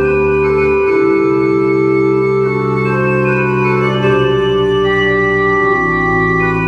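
Church pipe organ playing slow held chords, several notes sounding together and changing every second or two, with a high note entering about five seconds in.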